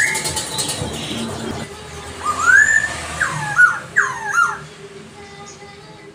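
A caged poksay (laughingthrush), sold as a strong singer, whistles a short song phrase about two seconds in: five or six loud, slurred notes that each rise and fall, over a rustling background noise at the start.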